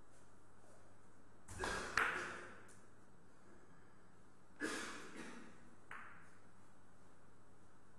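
Billiard balls clacking during a shot on a five-pins carom table: two sharp clicks about two seconds in, the second the loudest, then more knocks of balls against each other or the cushions near the middle.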